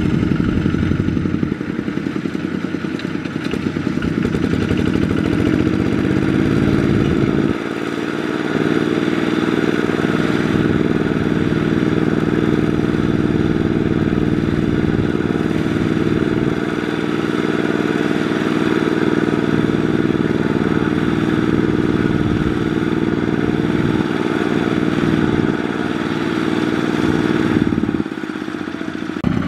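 Two-wheel walking tractor's single-cylinder diesel engine running steadily under load, straining to drag a loaded rice trailer through deep, sticky mud. The engine note changes abruptly about seven seconds in and again near the end.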